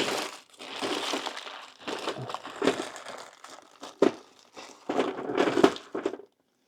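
Plastic packaging crinkling and rustling in several irregular bursts with sharp clicks, as someone rummages through solder supplies.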